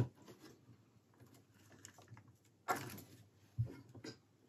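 A few light clicks and knocks of plastic parts: a clock module being pressed back into a VW instrument cluster housing by hand. There is one click at the start, a louder knock near three seconds in, and a quick group of taps about a second later.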